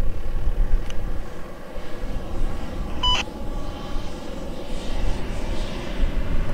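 A 4x4 SUV's engine runs as it drives across a sand dune, heard from afar as a low rumble mixed with wind buffeting the microphone. A short electronic beep sounds once about three seconds in.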